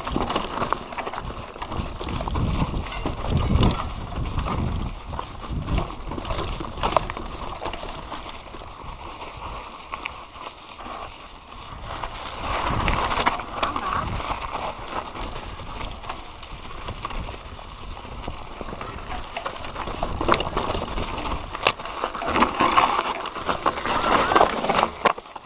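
Mountain bike descending rough dirt singletrack, its frame, chain and fork rattling and clattering over bumps with repeated sharp knocks, and surges of wind rumble on the microphone.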